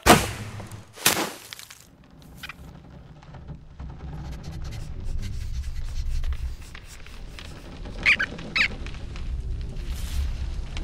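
Bowstring released with a sharp snap, followed about a second later by a second sharp hit. A low rumble then builds slowly, with two short high squeaks about eight seconds in.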